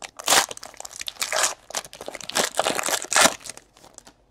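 Foil wrapper of a Panini XR football card pack crinkling and tearing as it is opened and pulled off the cards, in a run of crackling bursts that die away near the end.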